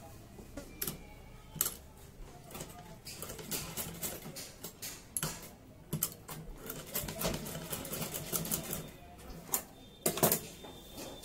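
Old black sewing machine stitching a petticoat waistband in short starts and stops, a quick run of clicks from the needle mechanism, with a few sharper knocks between runs.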